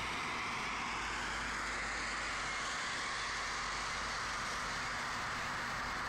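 Steady street traffic noise: an even hiss with no distinct passes, horns or bird calls.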